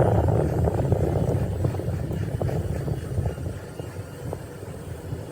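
A low, engine-like machine or vehicle noise that fades steadily over a few seconds.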